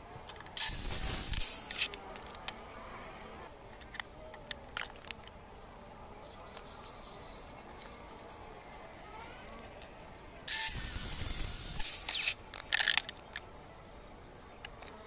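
Cordless circular saw making short crosscuts through a pine board: two bursts of cutting noise about ten seconds apart, each lasting about a second. Several sharp knocks follow the second cut.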